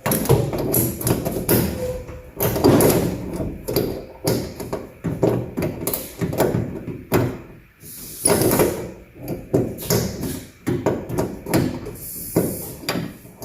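Metal clicks, clunks and rattles of a truck door handle and latch mechanism being worked by hand, an irregular run of knocks throughout.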